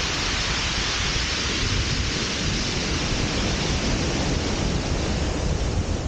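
Steady rushing noise of wind and sea surf on a shingle beach.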